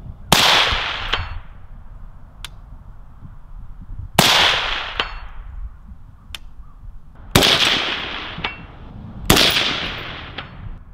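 Four suppressed rifle shots a few seconds apart from a 10.5-inch direct-impingement 5.56 AR fitted with an OSS (HuxWrx) HX-QD flow-through suppressor, each shot trailing off in a long echo. A faint tick follows about a second after each shot: the distant steel target being hit.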